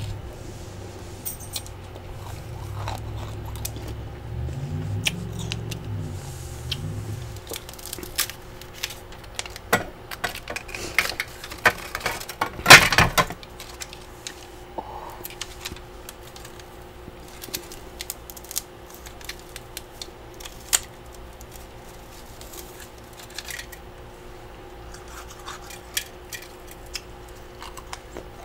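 Freezer frost grown by a humidifier being scraped loose and bitten and crunched in the mouth. Crisp crunches and scrapes come thickest in the first half, loudest near the middle, then thin out to scattered crackles over a steady low hum.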